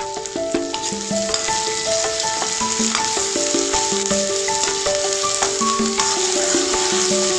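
Fish sizzling in hot oil in a pan: a steady, loud sizzle with fine crackles throughout. A simple background music melody plays under it.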